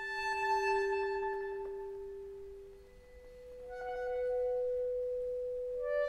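Concert accordion holding two long, reedy notes in turn, each swelling and then fading: a lower note for about three seconds, then a slightly higher one for the next three.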